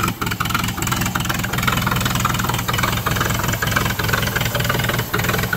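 Ford doodlebug tractor's original engine idling steadily, with an even low pulsing beat.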